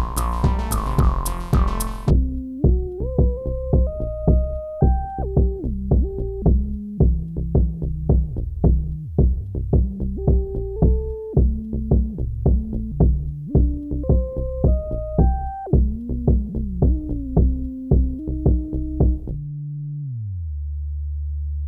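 Electronic music: an analog synthesizer playing a stepping melody over a steady drum-machine beat of about two hits a second. About two seconds in, the fuller layered part drops away. Near the end the beat stops and a low synth tone slides down in pitch.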